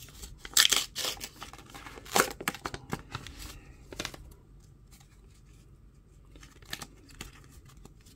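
AFLW Teamcoach trading-card pack wrapper crinkling and tearing as the cards are pulled out, in several sharp loud crackles over the first four seconds. After that comes only quieter rustling as the cards are handled.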